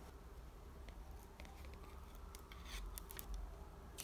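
Light handling of a clear plastic camera screen protector and its film: scattered soft clicks and ticks, with a brief crinkle a little under three seconds in.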